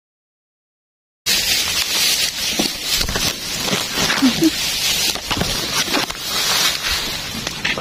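Silent for the first second, then grass and leaves rustling and brushing close against the microphone, a steady crackly hiss with scattered snaps.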